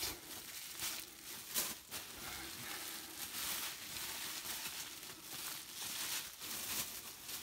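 Bubble wrap and paper packing being pulled out of a cardboard shipping box, a steady crinkling rustle with a few sharper crackles about one and a half to two seconds in.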